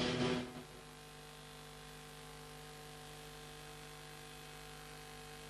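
Music cuts off within the first second, leaving a faint, steady electrical hum of several low tones with a light hiss.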